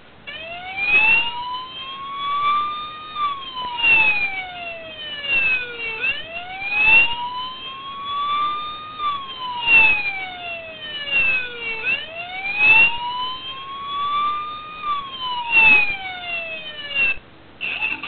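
Police siren sound effect in a wail pattern, played through a hard-drive speaker: a tone rising for about three seconds and falling for three, three times over, with a short noisy burst about every three seconds. It breaks off about a second before the end.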